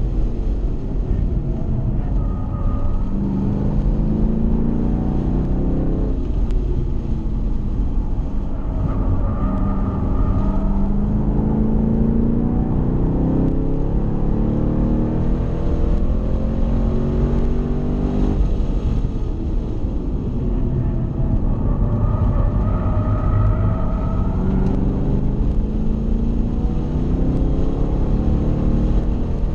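Chevrolet Camaro SS's 6.2-litre V8 under hard acceleration on a race track, heard from inside the cabin, its engine note climbing steadily in pitch. The note falls back sharply twice, about six seconds in and again after eighteen seconds, then climbs again.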